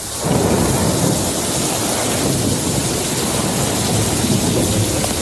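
Storm sound effect: a steady rush like heavy rain with a low thunder-like rumble underneath, swelling up just at the start and then holding steady.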